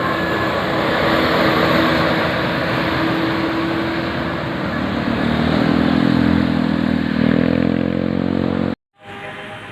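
Bus passing close with its engine running, over heavy road noise; a low engine note rises in pitch over the last few seconds. The sound cuts off abruptly near the end, then comes back quieter.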